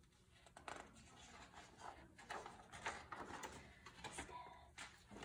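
Faint rustling and light handling of a picture book's paper pages as a page is turned.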